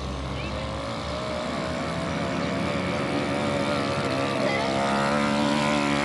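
Small youth quad bike's engine running steadily under light throttle, its pitch wavering a little and getting louder as it drives up close.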